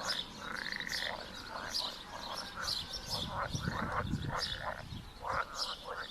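Chorus of frogs croaking over and over at a pond, with birds calling high above them; a low rumble rises and fades in the middle.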